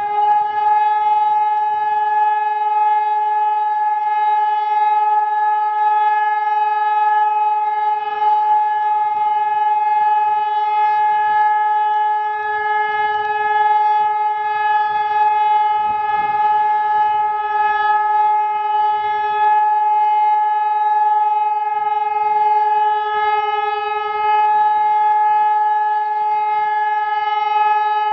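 ECN2400 electronic warning siren sounding the all-clear ('Entwarnung') signal: one loud, unbroken tone held at a constant pitch, with no rise and fall.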